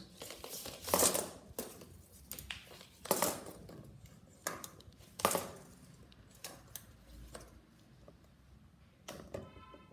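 Metal tape measure being pulled out and laid across cardboard: scattered sharp clicks and scrapes, the loudest about 1, 3 and 5 seconds in.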